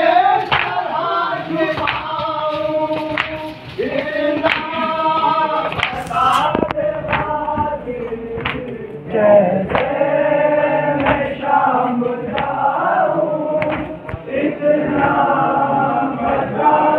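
Men's voices chanting a noha (Shia lament) together in chorus, with sharp slaps keeping a rough beat about once a second, the sound of matam, mourners striking their chests in time.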